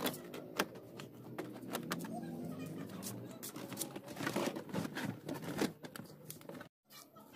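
A string of sharp clicks, knocks and rustles from a worker handling things inside a car's cabin. The sound cuts out abruptly for a moment near the end.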